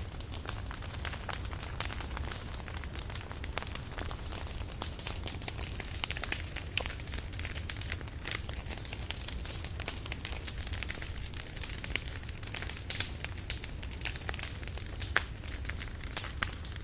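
Burning firewood crackling steadily with many small pops over a low, steady rumble; two sharper pops stand out near the end.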